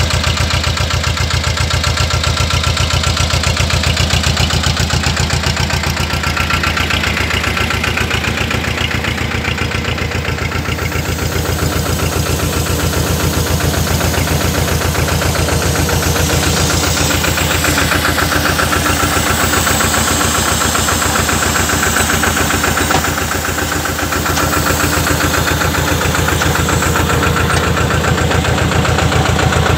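Powertrac 425 N diesel tractor engine running steadily at a constant speed, with a dense, even firing beat, while working a sprayer.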